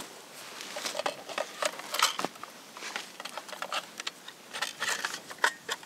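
Irregular small clicks and rustles of a scoped rifle on its bipod being handled and settled in, with clothing and dry brush rustling as the shooter gets down behind it.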